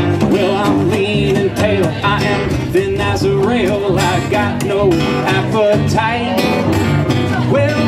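Live acoustic country band: upright bass plucked and acoustic guitar strummed, with a bending, wavering melody line riding over them.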